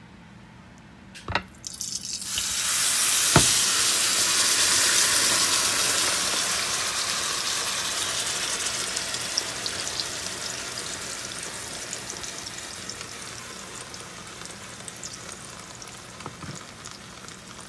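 Marinated chicken tipped into a hot frying pan, sizzling loudly. The sizzle starts about two seconds in after a couple of sharp knocks, is loudest for the next few seconds, then slowly dies down.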